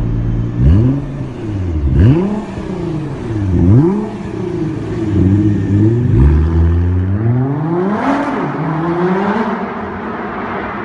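A car engine revved in about five quick blips, each rising sharply and dropping back, then one longer rev that climbs, holds high for a second or two and slowly falls away.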